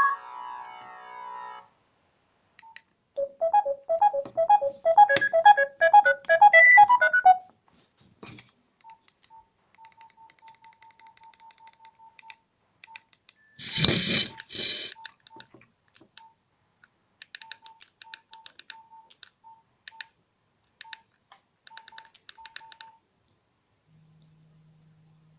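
Sagem mobile phone playing ringtone previews: the end of one polyphonic ringtone, then a short repeating melodic ringtone for about four seconds. Then come many short single-pitch keypad beeps as the menus are scrolled, with one brief loud burst of sound midway.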